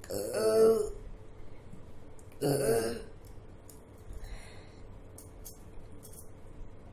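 A woman burping loudly twice, about two seconds apart, each burp under a second long, from a stomach full of drunk water.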